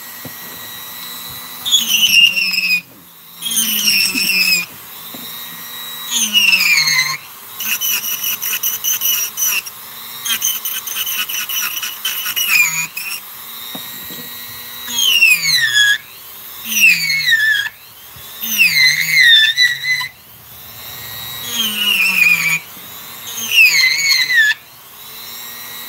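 Dremel rotary tool carving wood, running in repeated bursts of a second or two. Its high whine slides down in pitch during each burst, with short dips in between.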